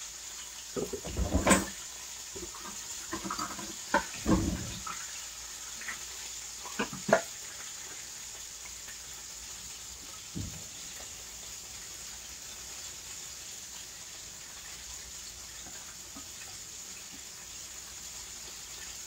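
Kitchen dishes and utensils knocking and clattering several times in the first seven seconds as food is served into a bowl, then only a steady faint hiss.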